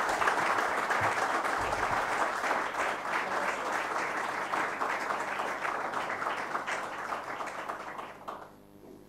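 Audience applauding, the clapping slowly tapering off and stopping near the end.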